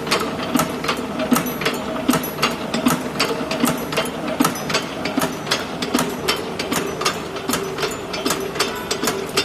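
Hydraulic CNC wire hook forming machine running: sharp metallic clicks and clacks two or three times a second from the feeding, bending and cutting strokes, over a steady hydraulic hum.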